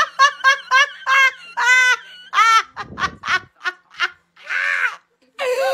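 A woman laughing hysterically: quick high-pitched bursts about five a second at first, then longer strained cries, with a rough gasp near the middle and a wheezy intake of breath near the end.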